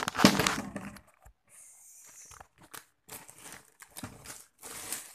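Handling noise from the recording phone being moved around: loud rustling through the first second, then scattered light clicks and knocks.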